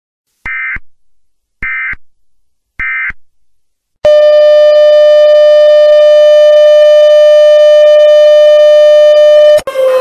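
Emergency Alert System end-of-message signal: three short screeching digital data bursts about a second apart. About four seconds in, a loud, steady, buzzy test tone starts with the color-bar screen and cuts off just before the end.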